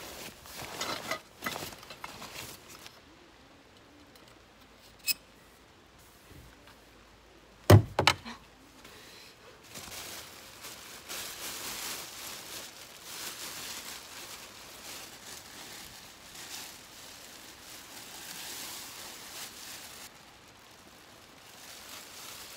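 Camping gear being handled: a few knocks and a click, then two heavy thuds about 8 seconds in. After that comes a long crinkling rustle of a thin disposable plastic raincoat being pulled on and adjusted.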